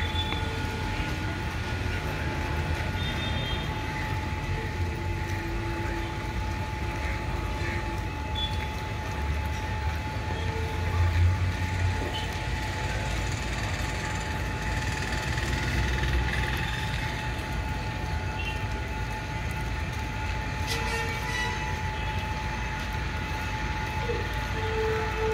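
Diesel multiple unit train's engine idling steadily while it stands still, a low rumble with a steady hum over it.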